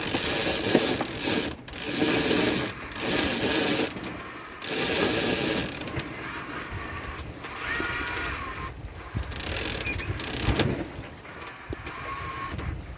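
Sailboat winch being cranked, its ratchet clicking in a series of short bursts, loudest over the first five seconds and fainter after.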